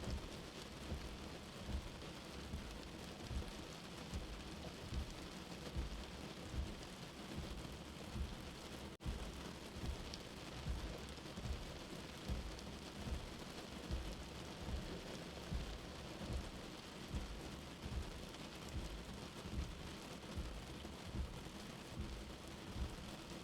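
Steady rain with a soft, low heartbeat underneath, about 75 beats a minute. The sound cuts out for an instant about nine seconds in.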